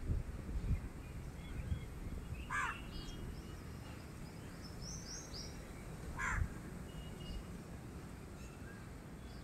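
A bird gives two short calls about four seconds apart, and a smaller bird makes a quick run of three high chirps between them.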